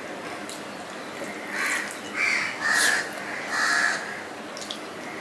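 A crow cawing four times in quick succession, harsh short calls.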